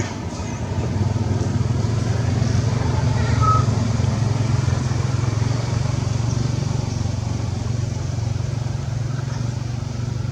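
A motor vehicle engine runs steadily with a low hum. It grows louder over the first few seconds, then slowly eases off.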